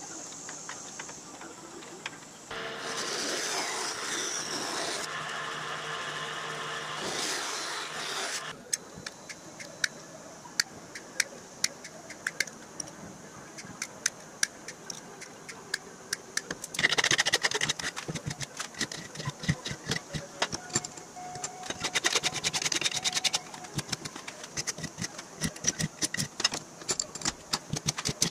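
Hand metalworking on sheet aluminum: about six seconds of steady noise, then many short, sharp clicks of tin snips cutting small aluminum strips, broken twice by louder noisy stretches.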